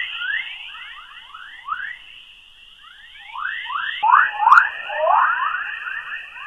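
Sonified space radio recording presented as the sound of a planet: a rapid string of short, downward-sweeping electronic chirps, a few each second, over a steady high hiss. The chirps thin out for a moment, then come back denser and louder about four seconds in.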